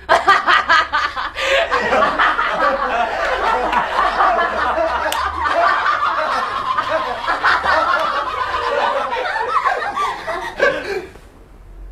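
Several men and women laughing hard together. The laughter dies down near the end.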